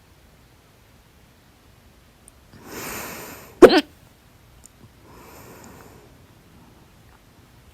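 A woman's single loud, sudden hiccup with a short pitched vocal catch, about halfway through, between soft audible breaths before and after it.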